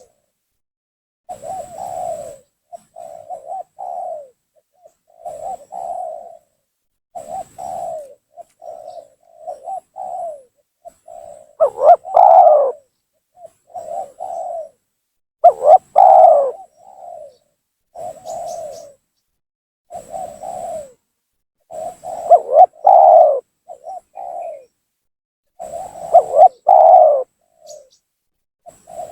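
Spotted dove (tekukur) cooing: a lure call of phrases of low coos repeated about every two seconds, some much louder than others. It is the kind of provoking call used to draw rival doves down.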